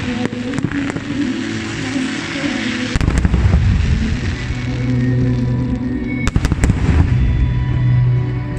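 Aerial firework shells bursting with sharp bangs over music, a few near the start and a quick cluster past six seconds in. A deep rumble comes in about three seconds in and carries on.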